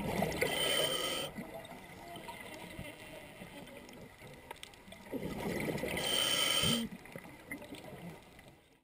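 A scuba diver breathing underwater through a regulator: two breaths about five seconds apart, each a hiss with gurgling bubbles, over a faint steady watery background.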